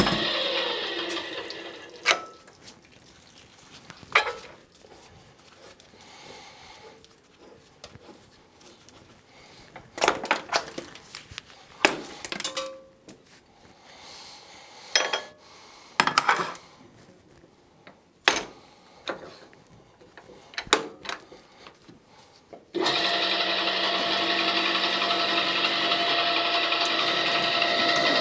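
REX 6590 gear-driven pipe threading machine winding down at the start. Scattered sharp metal knocks and clanks follow as tools on the machine are handled. About 23 s in, the machine starts again abruptly and runs with a steady gear and motor drone.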